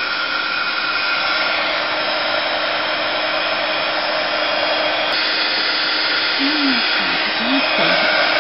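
Handheld electric heat tool blowing steadily, with a faint whine, while drying a wet card coated with water and pearl powder. A small click and a slight change in its tone come about five seconds in.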